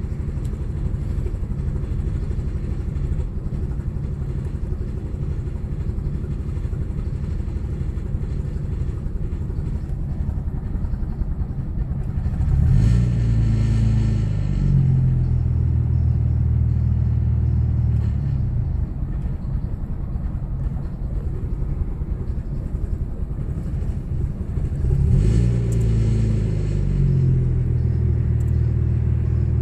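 Audi B5 S4's 2.7-litre twin-turbo V6 running after a cold start with a misfire. The engine speed steps up about twelve seconds in, holds for several seconds and drops back, then rises again near the end.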